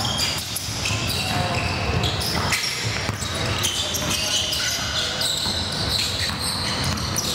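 A basketball game on an indoor court: the ball bouncing on the hardwood, with scattered voices from players and spectators and short high squeaks throughout.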